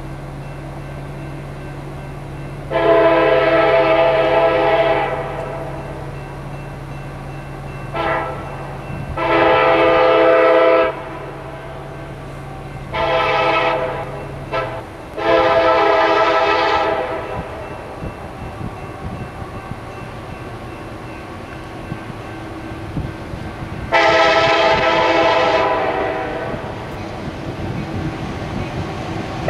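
Freight locomotive air horn sounding a grade-crossing sequence from a CSX SD70MAC: a series of long and short blasts with gaps between them, the longest about three seconds in and another long one starting about 24 seconds in.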